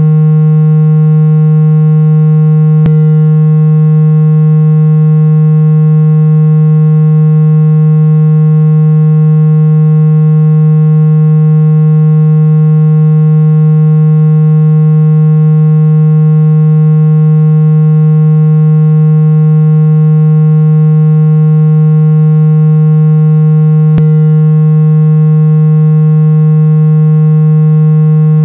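A loud, steady electronic tone with a low hum-like pitch and a stack of overtones, held without any change, offered as an ear-unblocking therapy sound. Two faint clicks cut through it, about three seconds in and again near the end.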